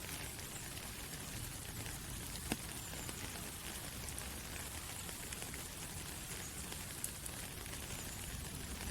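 Soft, steady rain falling through forest trees, an even hiss of many drops on leaves, with a couple of single louder drops ticking about two and a half and seven seconds in.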